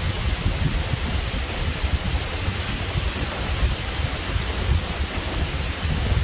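Steady rain falling in a thunderstorm, with a low, uneven rumble underneath.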